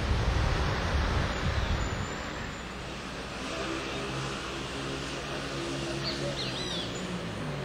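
Wind buffeting the microphone for the first two seconds, then a steady engine drone. A bird chirps a few times about six seconds in.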